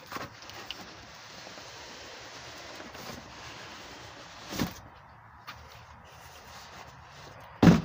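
A cardboard shipping box being lifted off another box and set aside, over a steady background hiss. There is a soft knock about halfway and a sharp, loud thud near the end.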